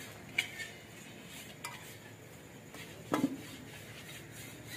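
A few clinks of a metal ladle against a plate and metal cooking pots as curry is served, with one louder knock about three seconds in.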